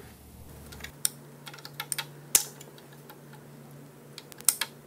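Scattered metallic clicks and taps of a hand tool working the plug out of the lower oil-priming port on an engine block, irregular rather than a steady ratchet rhythm, with two sharper clicks, one near the middle and one near the end.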